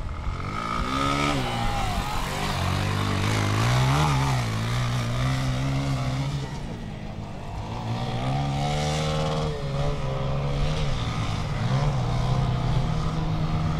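Motocross bike engine revving up and down as it is ridden over a dirt course, its pitch rising and falling repeatedly with the throttle and easing off briefly about seven seconds in.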